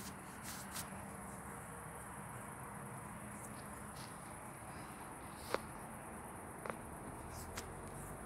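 Crickets chirring in the evening: a faint, steady, high-pitched trill, with a few brief clicks about five and a half and nearly seven seconds in.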